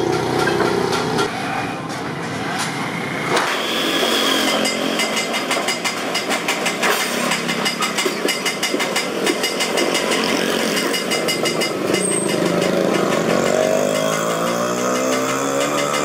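Street traffic of motorcycles and motor rickshaws running past, with an engine revving up near the end.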